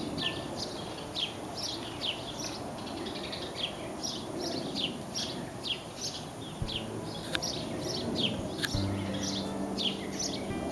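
Small songbirds chirping over and over: a quick run of short, high, falling chirps, about three a second.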